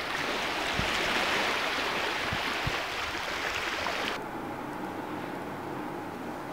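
Shoreline ambience: a steady hiss of wind and water at a rocky sea edge, with a few soft low thumps. About four seconds in it cuts off abruptly to quieter indoor room tone with a faint steady hum.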